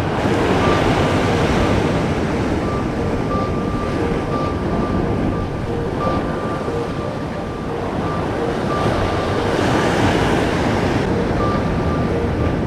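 Sea surf breaking and washing over rocks, with wind buffeting the microphone. The surge swells about a second in and again near ten seconds.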